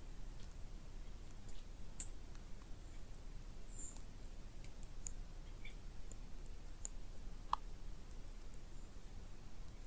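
Quiet summer woodland ambience heard from inside a tent: a steady low rumble with scattered faint clicks and ticks and a couple of brief high chirps. One sharper click stands out late on.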